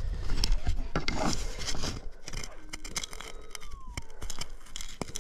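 A dirt clod holding a gold nugget being broken apart by fingers in a plastic detecting scoop: crackling clicks and scrapes of crumbling dirt, with rubbing handling noise that is loudest at the start. A faint falling tone sounds near the middle.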